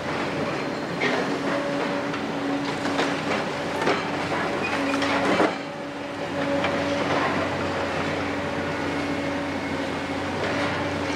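Doosan DX255LC-5 hydraulic excavator, six-cylinder diesel, running under load with a steady hum while its sorting grab works demolition rubble. Knocks and clatters of rubble against the grab come through, the loudest one about five and a half seconds in.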